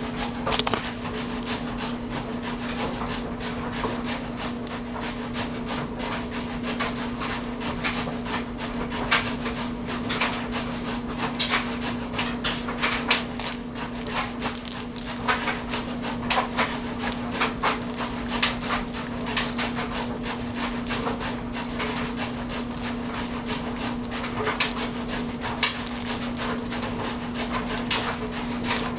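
A power drill runs steadily, driving a copper wire stripper as insulated wire is fed through its blade. Irregular clicks and crackles of the wire and insulation against the blade sound over the steady hum.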